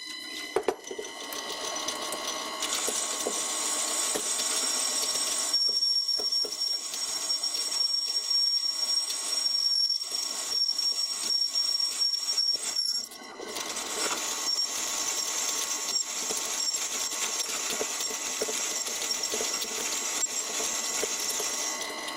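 Vintage bench wood lathe cutting aluminium, the tool taking a cut off the side of the workpiece with a steady, high-pitched whine and squeal. It dips briefly about thirteen seconds in, then picks up again. The cut leaves a terrible finish on a machine whose top slide has backlash and whose gibs need tightening.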